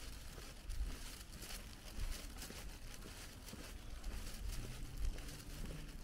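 Faint ambience of a quiet street, with a low, uneven wind rumble on the microphone.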